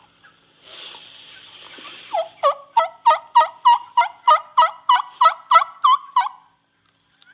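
Turkey yelping: a run of about fourteen evenly spaced yelps, roughly three a second, over a steady hiss. It stops abruptly.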